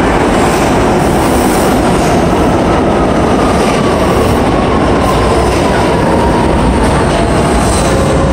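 Westinghouse R68 subway train pulling into an underground station past the platform. Its wheels make a loud, steady rumble on the rails, with a faint whine that falls slowly in pitch as the train slows to a stop.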